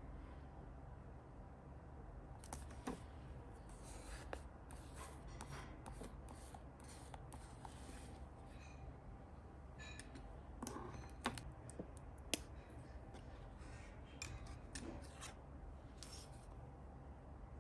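Scissors snipping paper in short, irregular cuts, with brief rustles and light taps of paper handling between them.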